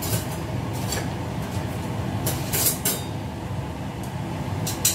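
Long wooden chopsticks stirring and tossing fried rice vermicelli in a large stainless steel pan, with a few short scrapes and clinks against the pan, three close together midway and one near the end, over a steady low hum.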